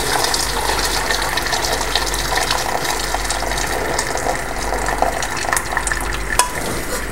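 Chicken stock (yakhni) being poured through a strainer into a pot of spiced chicken masala: a steady splashing pour, with a light clink near the end.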